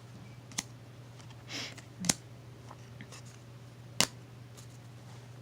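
Paper trading cards being handled: three sharp snaps as cards are flicked or laid down, with a brief rustle of cards about a second and a half in.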